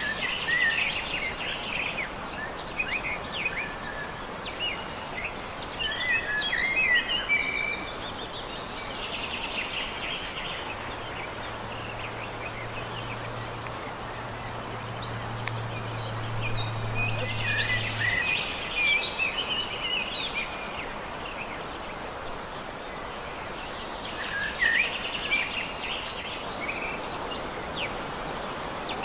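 Small birds singing in short chattering bouts every few seconds over a steady background hiss. A low steady hum comes in for several seconds around the middle.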